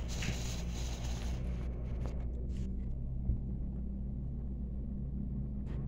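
A steady low hum, with a few faint light clicks about two seconds in and again near the end.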